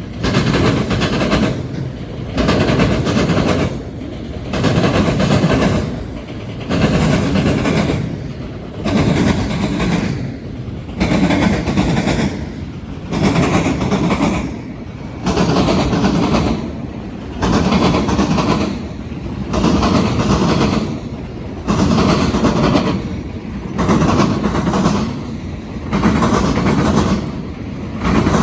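Freight cars of a CSX auto-rack train pounding over railroad diamond crossings: a loud burst of wheel impacts about every two seconds as each car's trucks cross the diamonds, with a quieter rolling sound between.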